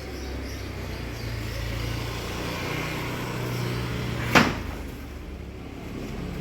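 A steady low engine-like rumble, with one sharp knock about four seconds in.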